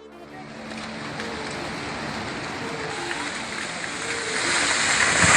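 Steady rush of water and heavy rain, growing louder toward the end.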